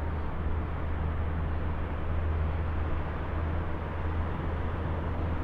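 Steady low outdoor rumble with an even hiss over it, unchanging throughout, with no distinct events.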